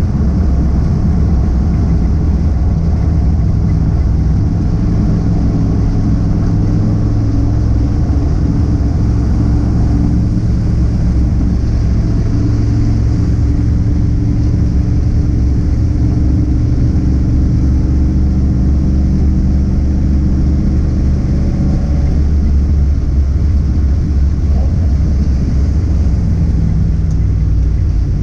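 Car engine running steadily as a loud, low drone that holds its pitch, with only small shifts in note, as when cruising at a steady speed.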